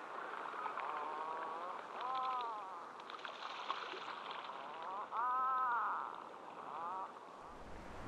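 Seabirds at a cliff colony calling: several drawn-out calls that rise and fall in pitch, the loudest about five seconds in, over a steady rushing background.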